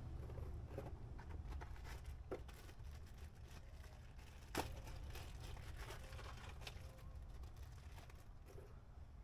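Faint handling noises: scattered small clicks and rustles with one sharper click about four and a half seconds in, over a steady low hum.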